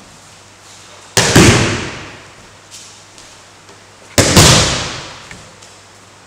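Two aikido breakfalls, about three seconds apart: each time the thrown partner's body and arm slap hard onto the mat in a quick double smack that echoes briefly around the hall.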